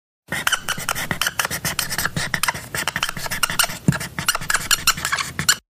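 Marker writing on a whiteboard: a quick, unbroken run of short scratching strokes that starts abruptly and cuts off sharply near the end.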